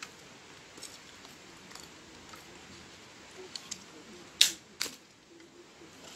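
Dry firewood sticks being broken and cracked by hand, with a few faint creaks and clicks, then two sharp cracks about half a second apart a little past the middle.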